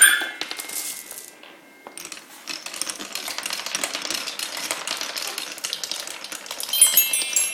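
Marbles rolling and clicking through a Quadrilla marble run, a dense rattle of many small knocks. Its musical sound blocks ring with chime-like tones that fade out at the start and sound again near the end.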